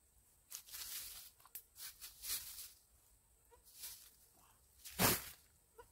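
Plastic litter and a trash bag crinkling and rustling as trash is picked up with a reacher-grabber and bagged, in several short bursts, the loudest about five seconds in.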